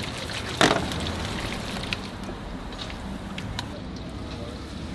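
Deep-frying oil sizzling steadily with faint scattered crackles as onion rings fry, with one sharp knock about half a second in.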